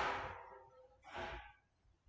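Two breaths close to the microphone. A sigh-like exhale at the start fades over about half a second, and a shorter, softer breath follows about a second later.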